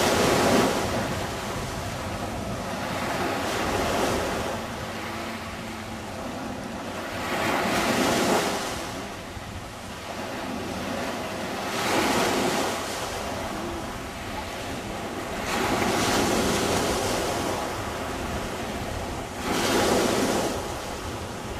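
Surf washing onto a sandy beach, the wash swelling and fading about every four seconds.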